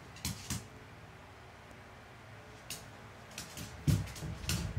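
A dog's paws and body scuffling and knocking on a hardwood floor in a few short, sharp bursts, loudest about four seconds in, over a faint steady hum.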